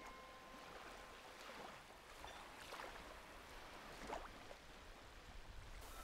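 Small sea waves lapping faintly on a sandy beach, with three soft splashes of water.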